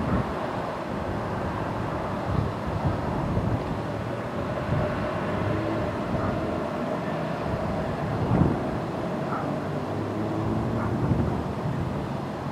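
Outdoor night ambience: a steady distant rumble of vehicle or machine noise, with wind gusting irregularly on the microphone.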